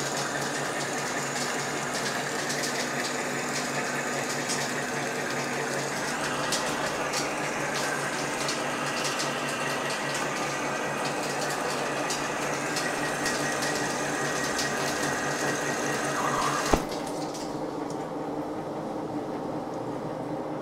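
Old Monarch engine lathe taking a heavy roughing cut, 0.300 in deep, on a 3.5-inch 1045 steel shaft with an LNMX carbide insert under flood coolant: steady cutting noise with splashing coolant and a patter of flying chips. About 17 seconds in comes a sharp clack, after which the high cutting sound drops away as the pass ends, leaving the lathe running and coolant flowing.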